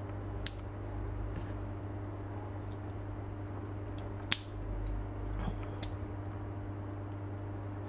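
Hard plastic model-kit parts clicking as thruster pieces are pressed into a Gundam kit's backpack: three sharp clicks with a little handling rustle between, over a steady low hum.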